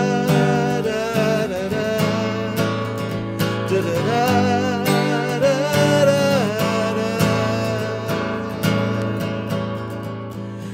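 Acoustic guitar strummed steadily while a man sings a wordless 'da da da' melody over it.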